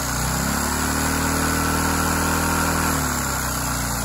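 A LEGO vacuum engine running under load while it turns a Power Functions motor as a generator, with a steady hiss. It revs up about a third of a second in, holds at the higher speed, then drops back about three seconds in.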